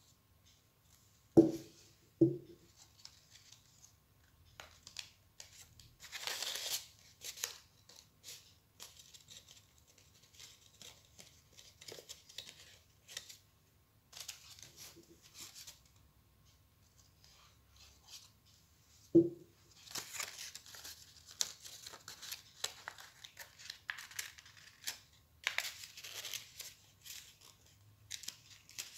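Folded paper rustling and crinkling as it is creased and pressed by hand, in scattered bursts. There are three sharp knocks: two about a second apart near the start, and one more later, which are the loudest sounds.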